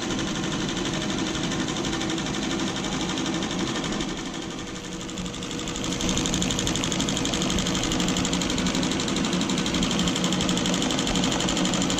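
Tajima multi-needle embroidery machine stitching a design onto a cap: a steady, rapid mechanical chatter of the needle and cap frame. It dips briefly a few seconds in and runs louder from about halfway.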